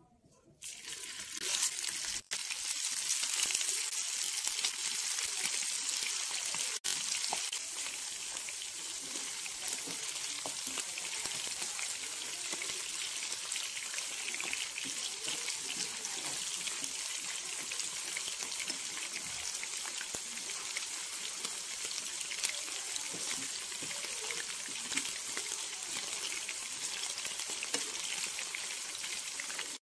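Batter-coated chicken strips frying in hot oil in a pan: a steady, dense sizzle that starts about a second in.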